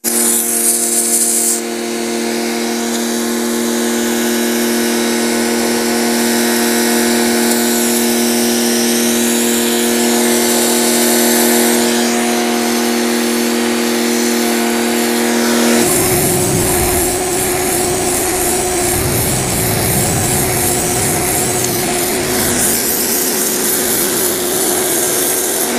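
Fujima pressure washer running, with a steady motor and pump hum and the hiss of its water jet blasting wet concrete. About two-thirds of the way in the hum changes pitch and the rougher noise of the spray grows.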